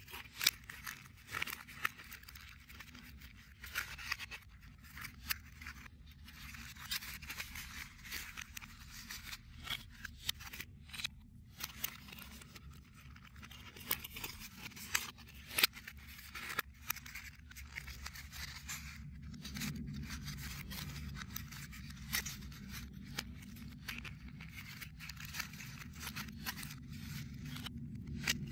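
Printed cardboard 3D puzzle pieces handled and pushed together by hand: crisp rustling and scraping of card with many short clicks and snaps as tabs slot into place.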